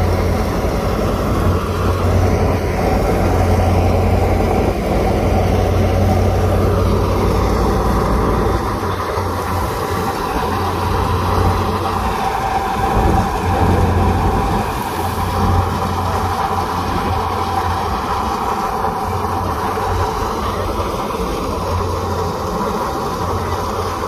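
Wheat threshing machine running steadily as bundles of cut wheat are fed in, separating grain from straw: a loud mechanical drone with a low rumble that eases after about eight seconds.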